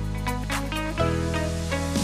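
Background music: sustained electronic synth chords with a change of chord about a second in.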